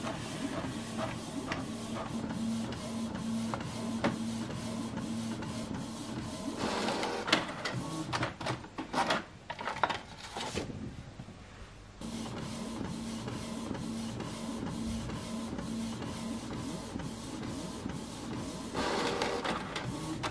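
Canon printer printing sheets of stickers: the print carriage shuttles with a steady motor hum and fast, regular ticking. A louder run of clatter comes about seven to ten seconds in, then the sound drops and resumes abruptly.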